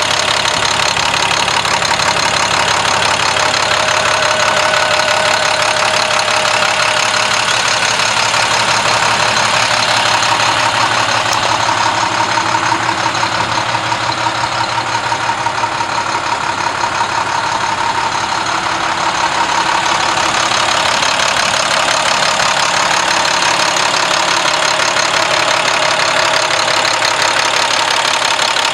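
Diesel engine of a 2005 International 4300 ambulance idling steadily.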